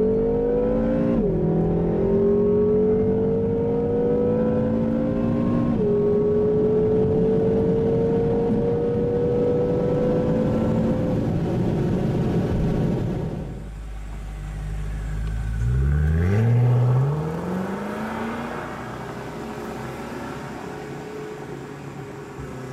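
BMW M5 (F10) 4.4-litre twin-turbo V8 at full throttle, heard from inside the car, pulling hard through the gears. It upshifts about a second in and again about six seconds in, the engine note climbing steadily after each shift. Around thirteen seconds in it lifts off, then a brief steep rev rise follows before the engine sound fades away.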